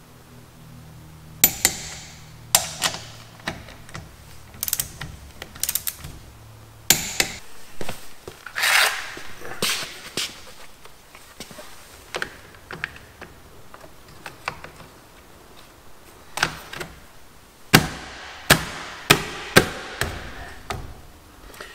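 Sharp clicks and knocks of a torque wrench tightening car wheel bolts to 75 N·m. Near the end, a plastic wheel cover is handled and pressed onto the wheel with a quick run of sharp clicks and taps.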